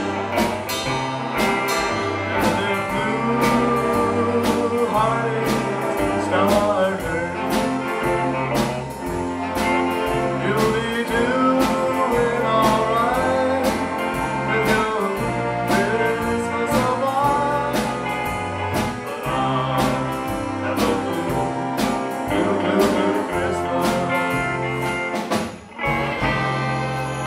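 A live rockabilly band with electric guitar, upright bass, drums and horns playing, over a steady bass line and drum beat. The band breaks off briefly near the end.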